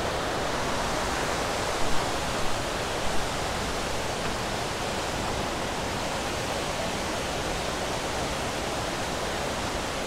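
Steady rush of the Mae Ya Waterfall stream pouring over wide rocky rapids.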